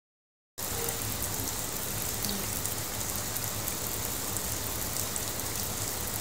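A steady, even hiss with a low hum underneath, starting suddenly about half a second in after silence.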